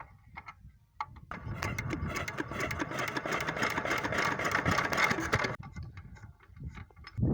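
An engine being cranked by its starter: a fast mechanical whirr for about four seconds that stops abruptly without the engine settling into running, consistent with a no-start fault.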